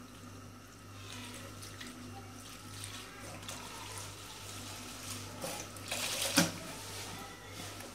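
Milk pouring steadily from a carton into a metal pan of pastry-cream powder, with a few brief louder handling sounds about three-quarters of the way through.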